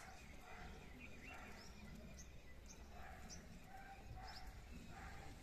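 Several short, high bird chirps, faint over a quiet background.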